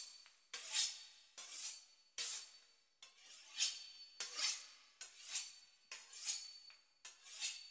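A knife sawing back and forth through the crisp pastry crust of a beef Wellington: evenly spaced dry, scraping strokes, a little more than one a second.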